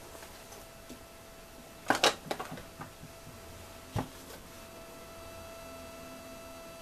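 Handling sounds from an RC tank model and its transmitter: a quick cluster of sharp clicks about two seconds in and a single knock at about four seconds, over a faint steady electronic whine from the sound-card speaker.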